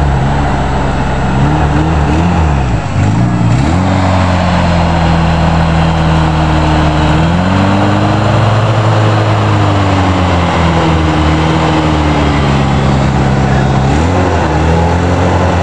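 Suzuki Samurai 4x4 engine working through deep mud, revving up and down several times with steady stretches in between.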